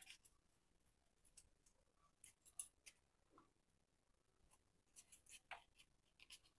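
A few faint, scattered knife cuts as pointed gourds (potol) are sliced lengthwise into strips, with near silence between them.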